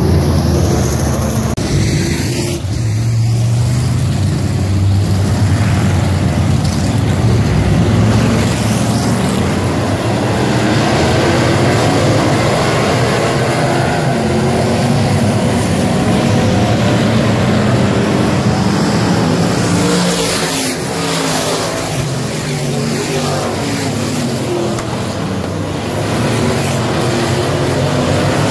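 A field of dirt-track street stock race cars racing, loud engines revving and passing in a continuous din. The sound eases somewhat about two-thirds of the way through as the pack moves off, then builds again near the end.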